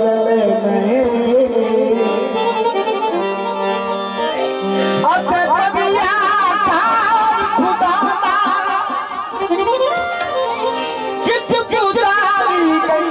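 Harmonium playing a melody to tabla and dholak drumming in a Punjabi qasida.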